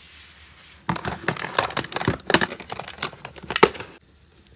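Hard plastic toy phone and toy purse being handled: a quick, irregular run of clicks, knocks and rustling that starts about a second in and stops shortly before the end.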